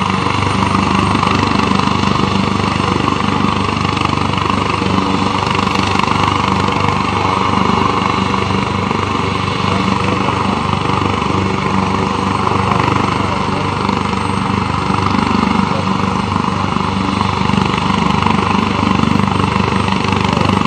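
Helicopter's engines and rotors running steadily on the ground, a loud even hum that holds without change.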